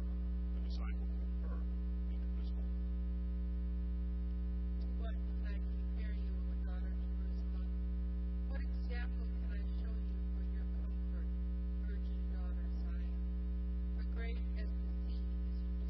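Steady electrical mains hum, a constant low drone with a stack of overtones above it. Faint, distant voices come and go beneath it.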